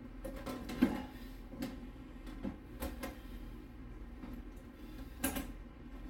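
Irregular clicks and knocks of hands handling parts and cables in a desktop PC case, the loudest about a second in and again near the end, over a low steady hum.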